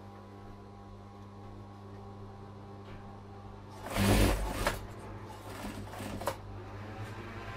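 Industrial sewing machine hums steadily. About four seconds in it stitches in one short burst, then makes a few brief stitches and clicks.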